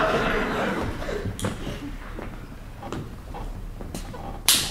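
Audience laughter dying away, then scattered footsteps on a stage as performers exit, and one sharp loud knock near the end.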